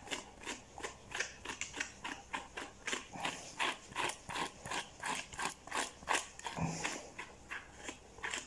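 Quick repeated strokes of a hand-held grooming tool raking through a dog's matted coat, about three scratchy strokes a second, as the tangles are worked out.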